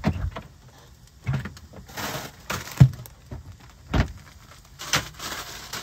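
Household handling sounds: about five separate knocks and thumps, with rustling between them, as a door is worked and a plastic bag of frozen soup vegetables is taken out.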